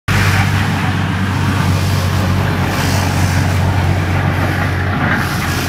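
Battery-powered backpack sprayer's electric pump running with a steady low hum, with a hiss from the spraying nozzle.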